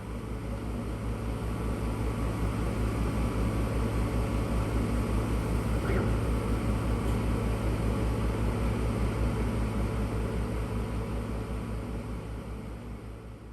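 A shop machine running steadily with a low hum and a fast, even low pulsing. It swells in over the first few seconds and fades out near the end.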